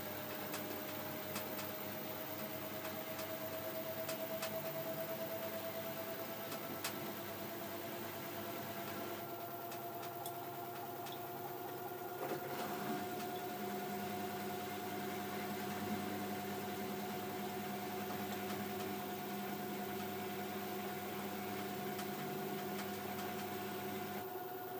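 LG F12A8CDP direct-drive washer-dryer running, its motor whine rising slowly in pitch over the first ten seconds or so and then holding steady as the drum gathers speed, with a steady hum and a few faint ticks.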